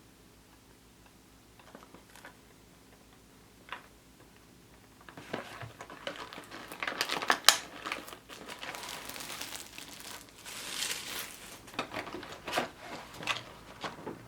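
Kinder Surprise egg packaging being opened by hand. A few light clicks come first, then from about five seconds in there is dense crinkling and tearing with sharp crackles.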